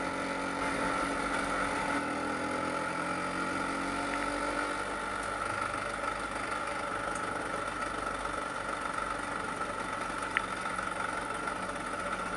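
Vespa PX 150's two-stroke single-cylinder engine running steadily under way, with a short tick about ten seconds in.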